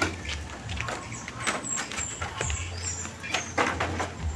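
Irregular hollow knocks and clatter of bamboo poles being handled and pressed against a wall of upright bamboo, with a few faint high bird chirps in the middle.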